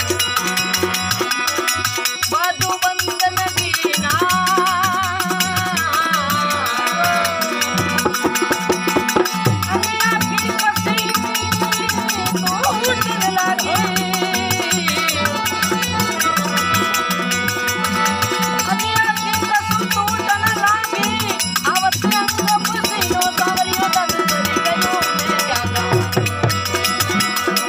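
Prabhati bhajan, a devotional folk song, playing: rattling hand percussion over a steady drum beat, with a wavering melody line above.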